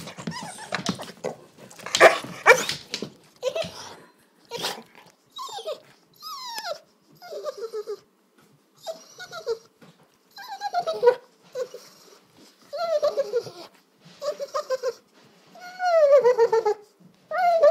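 Yellow Labrador whining and whimpering in a string of about a dozen short calls, each sliding down in pitch, after some rougher grumbling at the start. These are the noises it makes at dinner time, begging to be fed.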